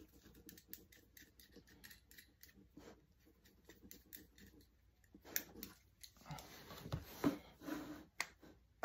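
Faint quick clicking and rustling of hands pulling something off or unwrapping it. In the last few seconds come a few louder, sharper clicks and knocks as neodymium fishing magnets are handled.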